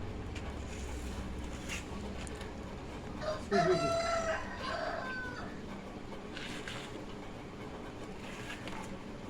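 A rooster crowing once, about three seconds in, a single call lasting under two seconds.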